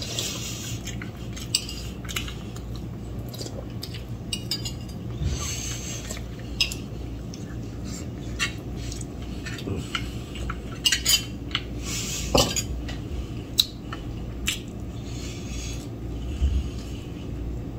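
Metal spoons and forks clinking and scraping against bowls and plates while eating, in scattered single clicks with a quick cluster of several about two-thirds of the way through.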